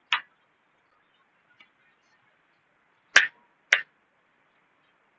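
Whiteboard duster wiping across the board, heard as a few short, sharp swipes and knocks: one just after the start, a faint one about a second and a half in, and two loud ones half a second apart a little after three seconds.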